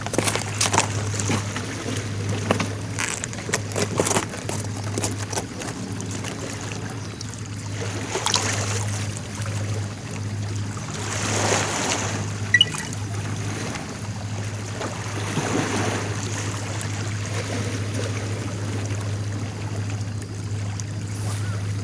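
Sea waves washing in every few seconds, over a steady low hum, with scattered clicks in the first few seconds.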